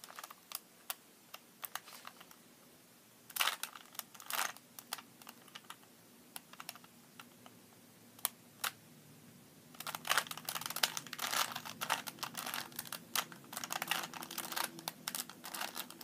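Plastic Rubik's Cube layers being turned by hand, clicking and clattering. Scattered single clicks at first, two quick flurries around three and four seconds in, a lull, then rapid, continuous turning clicks from about ten seconds in as an algorithm is run through.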